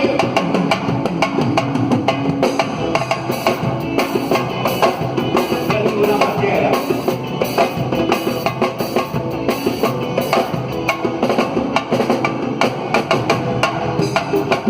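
Samba percussion playing a busy, steady rhythm of drums and sharp, wood-block-like strikes.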